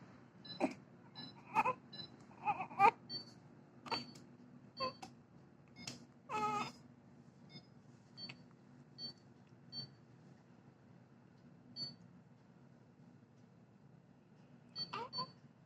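Newborn baby making short, squeaky whimpers and grunts, with one longer whiny cry about six seconds in and another burst of squeaks near the end. Small high-pitched clicks come in between.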